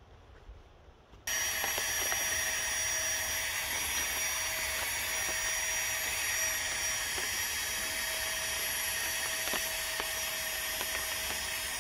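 Small electric air mattress pump switched on about a second in and running with a steady, even whine.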